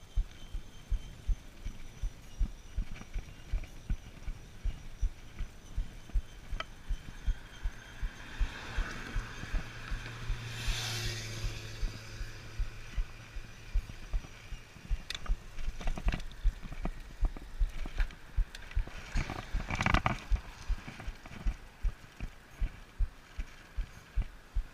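A strip of tape stuck on a road bike's rear wheel, ticking about three times a second, once each turn of the wheel as it rides. A passing vehicle swells up and fades about ten seconds in.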